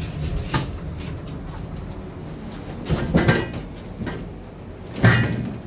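Elevator car running with a steady low hum, with a few short knocks and clunks along the way and a louder clunk near the end.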